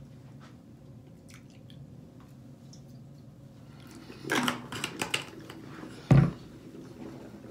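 Plastic mouthwash bottle and cap being handled: faint small clicks, then a cluster of louder rustles and clicks about four seconds in, and one sharp thump about six seconds in.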